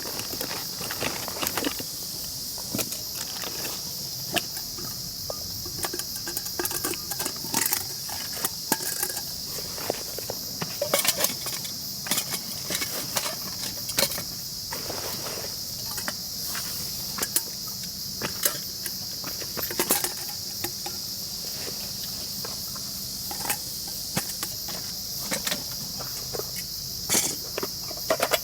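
A steady, high insect chorus with a constant chirring, and over it irregular clicks, knocks and rustles close by.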